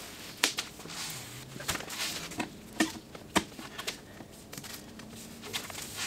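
Handling noise at a workbench: scattered light clicks and knocks of a steel windshield frame and hand tools being moved and worked, over a soft rustle.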